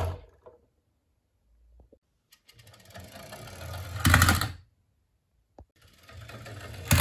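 Small toy garbage truck rolling down a wooden board ramp, its wheels rattling on the wood. The sound builds for about two seconds to a louder clatter and stops, and a second run starts a little over a second later.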